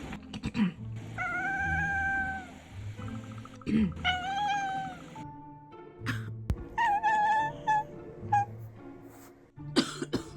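A person coughs and a cat answers the coughs with drawn-out meows, back and forth several times. Background music plays throughout.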